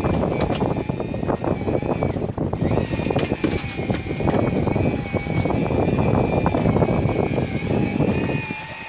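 A boat's engine runs steadily with a high whine that dips and climbs back about two seconds in, under rough wind and water noise.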